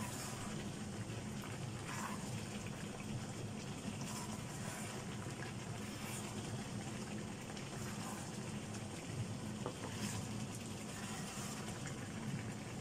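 Chicken pieces and spices frying in a nonstick wok, sizzling steadily while a wooden spatula stirs and scrapes them every second or two. A steady low hum runs underneath.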